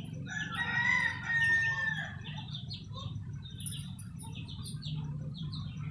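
A rooster crowing once, a long pitched call of about a second and a half that is the loudest sound, with rapid high chirping from small birds and a steady low hum underneath.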